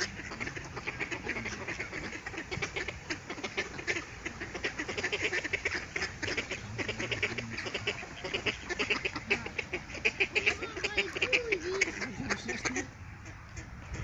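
A crowd of mallard ducks quacking in a rapid, overlapping chatter as they jostle for bread, cutting off suddenly about a second before the end.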